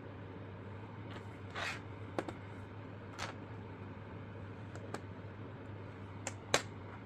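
About six small, separate clicks and taps of plastic miniature pieces being handled and set down, the loudest near the end, over a steady low hum.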